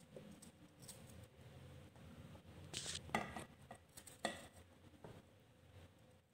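Knife cutting a cucumber held in the hand, with soft handling noise and two sharper metallic taps of cut pieces dropping onto a stainless steel plate, about three and four seconds in.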